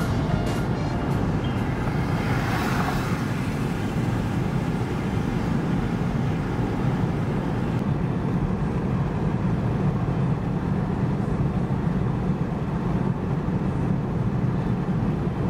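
Steady road and engine rumble inside a car's cabin while cruising on a highway. There is a brief whoosh about two seconds in.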